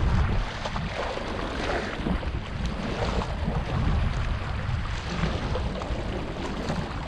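Wind buffeting the microphone in a steady low rumble, over choppy sea water washing against shallow rocks.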